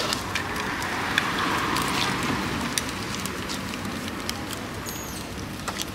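Roadside ambient noise: a steady hiss with scattered small clicks and taps, swelling briefly about a second and a half in.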